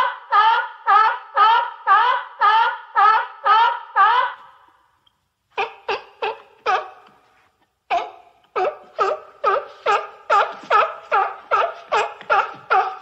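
Sea lion barking in long series, about two barks a second. The barking breaks off about four seconds in, resumes with a few barks, pauses again, then picks up in a faster run.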